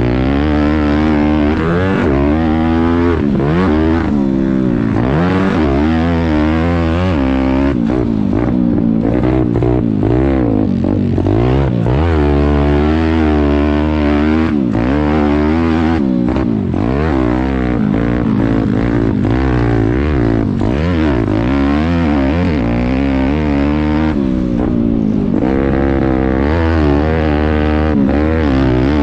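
Pit bike's small single-cylinder four-stroke engine revving hard and repeatedly, its pitch climbing and dropping every second or two as the throttle is worked through a rough enduro section.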